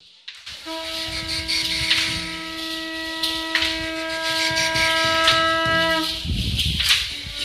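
Conch shell trumpet blown in one long, steady note of about five seconds that cuts off suddenly; a second, lower blast starts right at the end. Scattered clicks and knocks sound beneath it.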